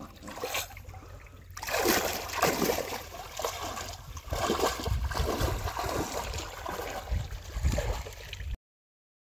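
Water sloshing and splashing in uneven surges as a person wades through shallow pond water. It cuts off abruptly shortly before the end.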